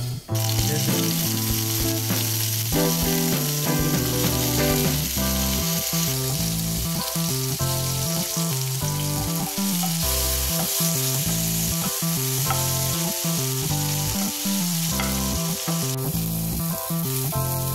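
Hot oil sizzling steadily as tomato pieces fry with cumin seeds in a nonstick frying pan, with background music underneath.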